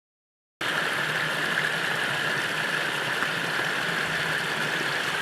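Steady rushing of falling water from a waterfall or creek, cutting in abruptly about half a second in after silence and holding even throughout.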